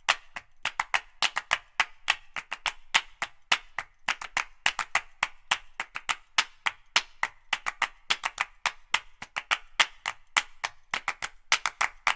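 Dry, wood-block-like percussive clicks in a quick syncopated pattern, about four or five a second, with no melody or bass: a bare percussion passage of background music.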